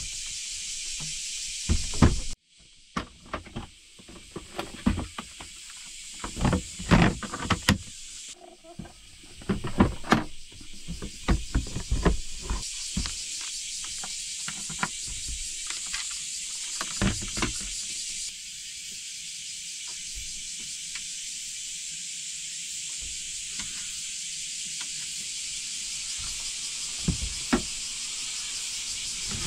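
Clicks, knocks and clunks of camping gear being handled, as a portable power station is lifted into place and a cable is plugged into it, over a steady high hiss.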